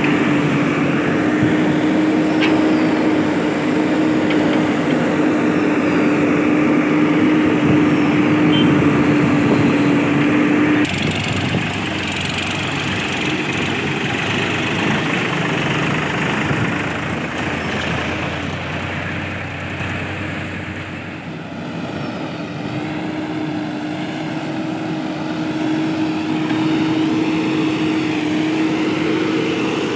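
Diesel engines of a backhoe loader and tractors running steadily, with a steady whine over the engine noise. The sound changes abruptly about a third of the way in. The whine drops out at that point and comes back in the last third.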